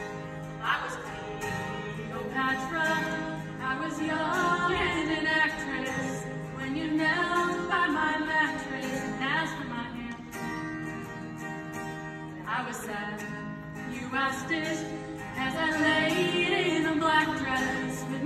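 Two female voices singing a song with acoustic guitar accompaniment.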